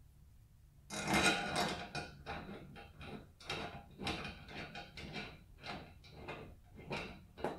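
Hands handling small fastener hardware at a stainless steel luggage rack's foot, starting a screw by hand: irregular rubbing and scraping strokes that begin about a second in, the first the loudest.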